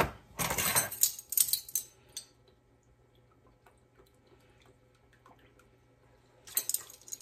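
Kitchen handling noise from a Worcestershire sauce bottle and a measuring spoon being worked over a pot of broth: a couple of seconds of rustling and clicks, a quiet stretch with a few light ticks, then more clattering near the end.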